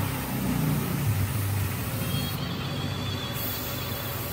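Air compressor running steadily, a low motor rumble with an even hiss.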